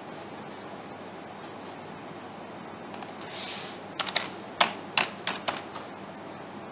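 Typing on a computer keyboard: a quick run of about half a dozen sharp keystrokes.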